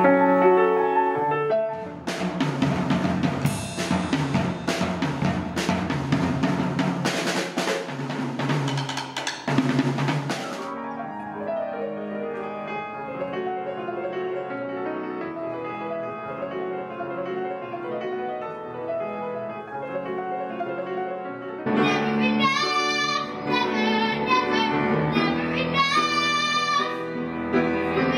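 Grand piano playing, then about eight seconds of drum kit starting two seconds in. Solo grand piano follows, and from about 22 seconds in a young girl sings into a microphone.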